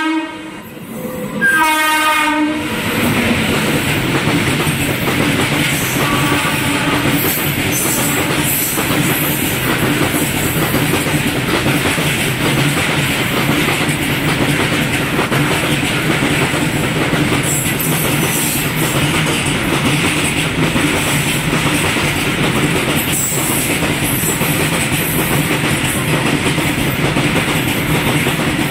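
Train horn sounding at the start and again in a short blast about two seconds in, then a passenger train running through the station at speed, its coaches passing close by in a steady, loud rush of wheels on rail.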